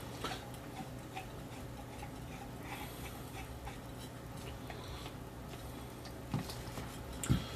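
Faint handling noises: small clicks and rustles as tool parts and packaging are moved about, with two soft knocks near the end.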